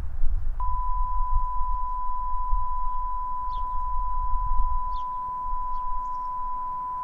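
Voicemail system's record beep: one long, steady, unbroken tone that starts about half a second in and keeps going, over a low rumble.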